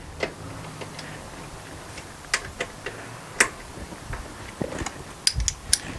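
Scattered light metallic clicks and taps as steel bolts and washers are turned by hand into a steel seat swivel base. A cluster of clicks comes near the end, with one dull knock about five and a half seconds in.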